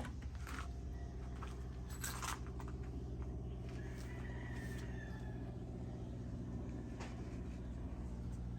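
A few light clicks and knocks from handling a loaded rifle, the loudest about two seconds in, over a steady low hum. A rooster crows faintly around four to five seconds in.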